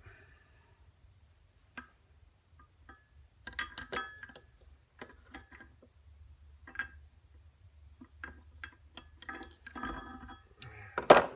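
Irregular light metallic clicks and clinks as steel engine parts and hand tools are handled on a workbench, fitting a connecting rod cap and its bolts to the crankshaft. One louder clunk comes near the end.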